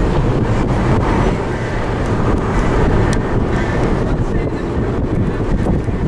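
Steady wind and road noise from a moving car driving through a snowstorm, with wind buffeting the microphone.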